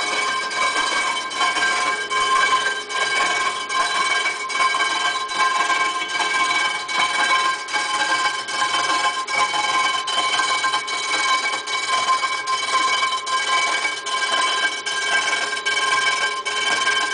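Storm-Vulcan rotary broach milling the deck surface of a 350 Chevy cylinder head. There is a steady metallic ringing of several held tones, with a regular tick a little faster than once a second as the rotating cutter head makes its passes.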